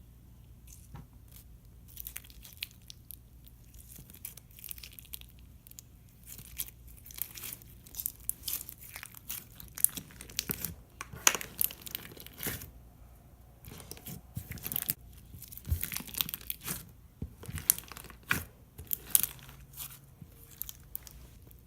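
Slime being squished and stretched by hand, giving irregular sticky clicks, pops and crackles that come thickest in the middle and thin out near the end.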